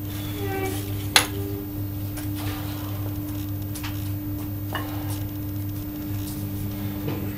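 Metal gym equipment being handled: scattered light clinks and knocks of metal on metal, with one sharp clank about a second in, over a steady low electrical hum.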